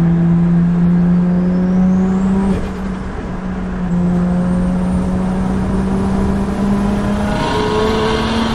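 Nissan Skyline R33's turbocharged straight-six, heard from inside the cabin, pulling under acceleration with its note rising. It eases off briefly about two and a half seconds in, then pulls again on a freshly installed performance clutch.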